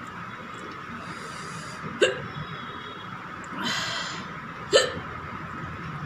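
A woman hiccuping twice, sharp and sudden, about two seconds in and again near the end, each with a short hiss of noise before it. The hiccups are brought on by eating spicy food.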